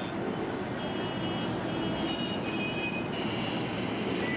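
Steady hum of town street traffic heard from a rooftop above the road. High, thin tones sound on and off from about a second in.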